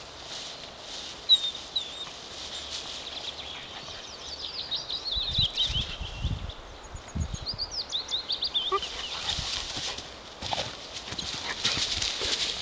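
Gordon Setter puppies squealing in quick runs of high-pitched squeaks while play-fighting, with a sliding whine, amid rustling and thumps of the tussle on grass.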